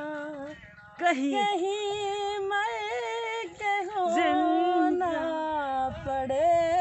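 A woman singing unaccompanied, holding long wavering notes with no clear words, to the tune of an old Hindi film song, with a short break about a second in.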